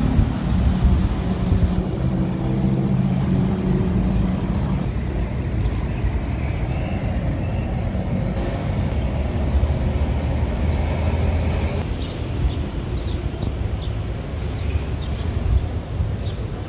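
Road traffic: vehicle engines running and passing, with a low engine hum strongest in the first few seconds and again briefly near the middle.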